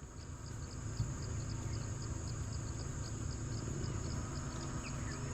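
Forest insects: a steady high-pitched buzz with a regular chirp about four times a second, over the low steady rumble of an idling vehicle engine.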